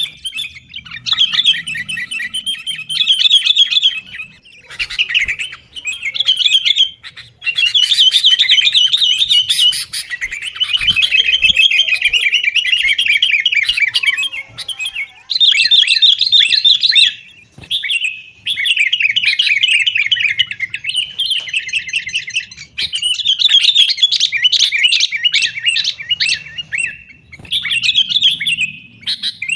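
Sooty-headed bulbuls (kutilang) calling in fast, noisy chattering bouts of a few seconds each, with short pauses between. It is an excited, quarrelling exchange, the kind of calling used to provoke captive bulbuls into singing.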